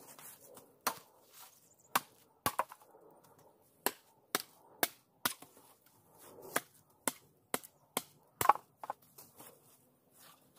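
Machete chopping a wooden pole: about fourteen sharp, separate strikes at uneven intervals, the loudest one near the end.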